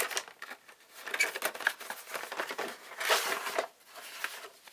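Rustling and crinkling as a cardboard model-kit box is handled and its paper instruction sheet is pulled out, with small clicks and a louder rustle about three seconds in.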